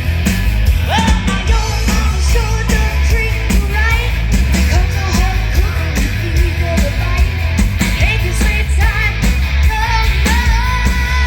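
Loud rock music with a singer over a steady band beat, with a long held note near the end.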